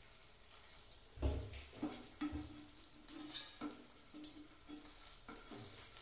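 Metal spatula and tongs knocking and scraping against a nonstick frying pan as slices of bread are pushed and turned, a dozen or so short clicks with a heavier thump about a second in. Ghee sizzles faintly under the bread.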